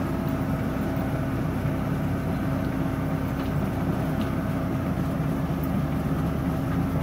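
Daewoo forklift's engine running steadily with a constant hum while it tilts a bin of crushed grapes into a wine press hopper.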